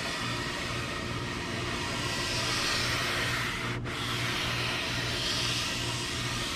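Sandpaper in a homemade 90-degree wooden edge-breaker block rasping along the sharp edge of a wooden bed rail in long strokes, rounding off the edge. There is a brief break nearly four seconds in.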